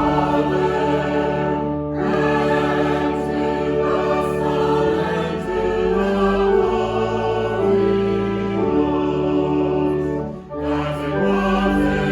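Choir singing sustained chords over instrumental accompaniment, with a short break about ten and a half seconds in.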